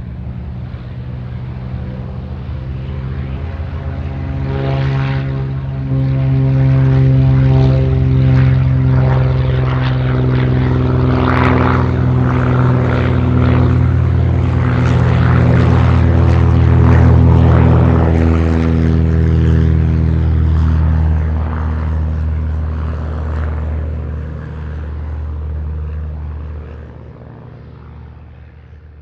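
Biplane flying past: its propeller engine drone grows louder, is loudest in the middle, and drops in pitch as the plane goes by, then fades away near the end.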